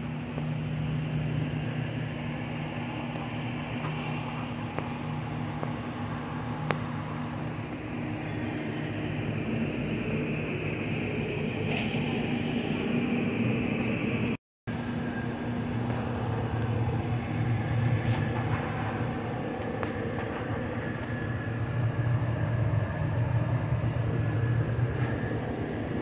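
Steady low hum of indoor background noise with a faint hiss over it. It cuts out to silence for a moment about halfway through.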